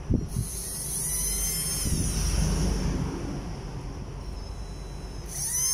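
Small cordless-drill DC motor run through its variable-speed trigger: it spins up, its whine rising and then falling away over a couple of seconds, then starts up again near the end.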